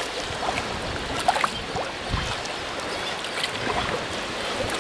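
Sea water lapping and splashing around a sea kayak's hull, with scattered short calls from a seabird colony on the cliffs above.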